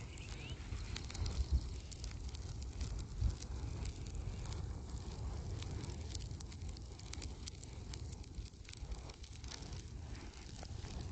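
A fire burning a recliner: scattered crackles and pops over a steady low rumble, with two louder thumps in the first few seconds.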